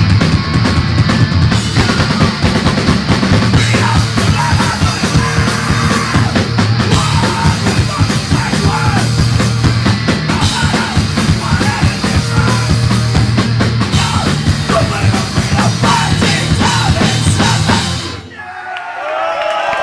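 Hardcore punk band playing live: drums, guitars and yelled vocals. The song stops abruptly about 18 seconds in and the crowd cheers.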